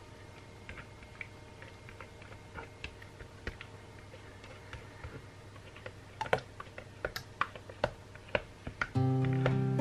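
Light, irregular clicks and taps of plastic containers being handled. The taps grow sharper and more frequent towards the end. Background music comes in about nine seconds in.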